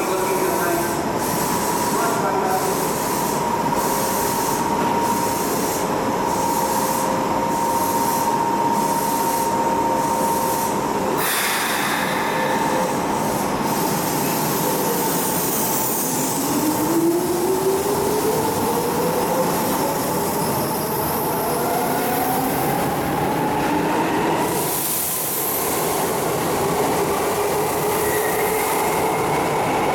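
Electric commuter train in an underground station: a steady tone while it stands, a brief burst of noise about eleven seconds in, then the traction motor whine rising steadily in pitch as the train accelerates away from the platform. The sound echoes off the station walls.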